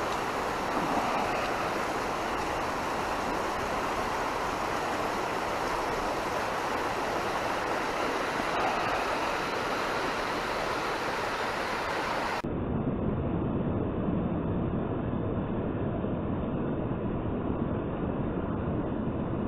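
Steady rushing of river water. About twelve seconds in it abruptly becomes duller and lower, with more rumble.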